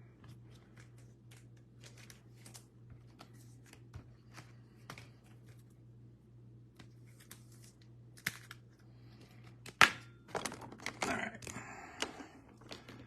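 Trading cards and their packaging being handled at a table: scattered light clicks and taps, then a sharp click about ten seconds in followed by a couple of seconds of crinkly rustling. A steady low hum runs underneath.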